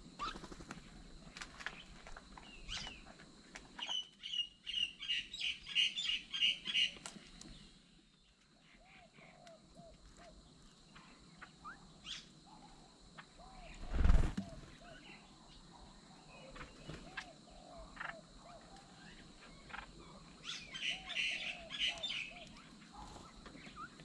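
Mynas at a bird table give two bursts of rapid, harsh chattering calls, one about four seconds in and another near the end, among soft repeated chirps and small ticks of pecking at the food dishes. A single loud thump comes about halfway through.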